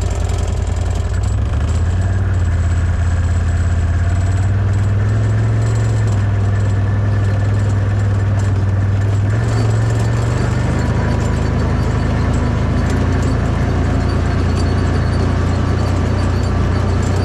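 Side-by-side off-road buggy's engine running steadily at low road speed over a rough dirt track, a deep, even drone with small changes in pitch.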